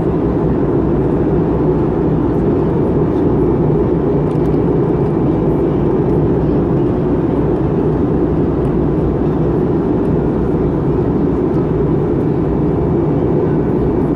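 Cabin noise of an Airbus A320 in flight, heard from a window seat beside the wing-mounted engine: engine and airflow noise make a steady, even drone, heaviest in the low-to-middle range.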